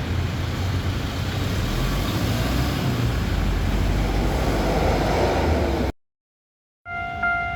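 A steady low rumble of a passing vehicle for about six seconds, then it cuts off to a second of silence. The level crossing's warning bell then starts, a ringing electronic tone struck about twice a second.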